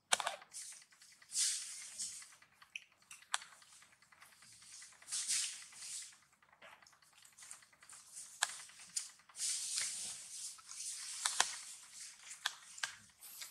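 Faint, scattered rustles and sharp clicks: monkeys handling and eating fruit and shifting about on dry leaves and sandy ground.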